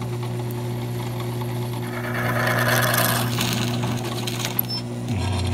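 Drill boring a hole into a cast bronze bell: a steady motor hum, with a louder rush of cutting noise about two seconds in that lasts a second or so as the bit bites into the metal.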